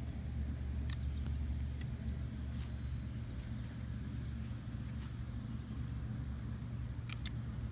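A steady low hum, with a few faint clicks and short high tones over it.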